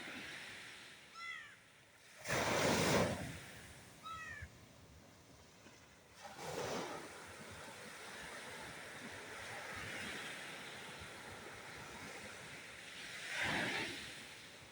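Sea waves breaking on a beach: a loud crash of surf about two seconds in, more waves washing in about six seconds in and near the end, with a steady wash of surf between them. Short series of high falling chirps sound twice in the first few seconds.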